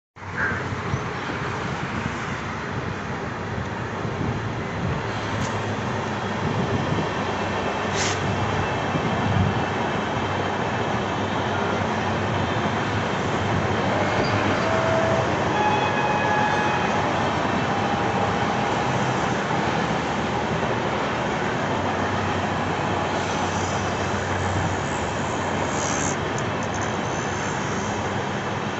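Passenger train rolling steadily over an old stone arch bridge: a continuous rumble of wheels on rail, with a few faint wheel squeals about halfway through.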